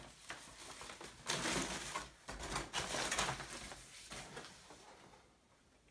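Rustling and scraping as a white protective wrap is pulled off a computer monitor panel and the panel is lifted out of its box, in two main bursts, then fading away.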